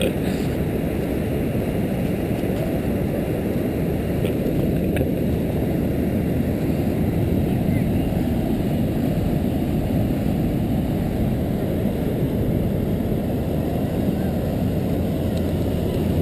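Steady rushing wind buffeting on an action camera's microphone as it moves across the beach, a dense low noise with no separate events.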